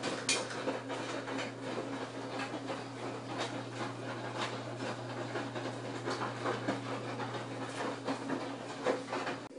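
LG WM3470HVA front-load washer drum turning slowly in the wash cycle: a steady motor hum with irregular clicking and grinding over it, stopping abruptly near the end. The owner questions whether this grinding, which comes only at slow wash rotation and not at fast spin, is normal.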